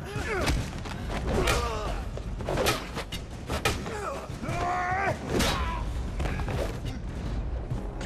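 Hand-to-hand fight: repeated thuds and blows land, with men grunting and shouting between them.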